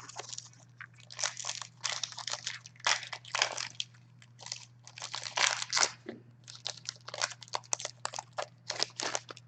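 Foil hockey card pack wrappers crinkling while the cards inside are slid and flipped through, making an irregular run of short rustles and crackles over a steady low hum.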